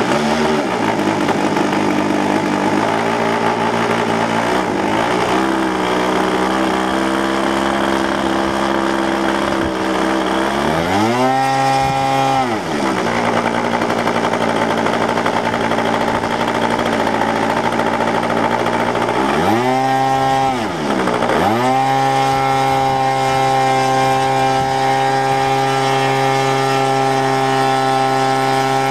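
OS 160 two-cycle engine of a large model aerobatic plane running on a ground run. It is revved up and brought back down about a third of the way in, swings sharply in speed again about two-thirds in, then runs at a steady speed.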